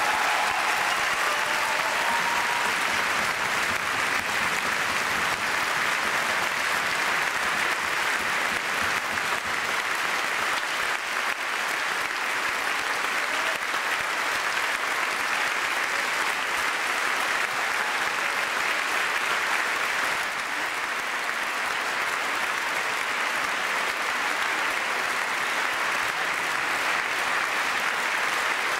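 Large audience applauding steadily and continuously. The last notes of the dance music fade out in the first second.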